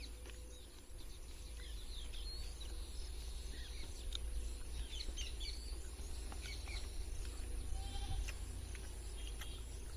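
Outdoor ambience: scattered short, high bird chirps over a low, steady rumble, with a few faint clicks.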